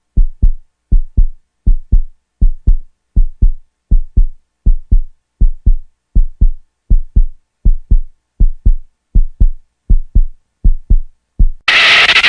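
Heartbeat sound effect: low double thumps, lub-dub, repeating evenly at about four beats every three seconds. Near the end a loud, noisy sound abruptly takes over.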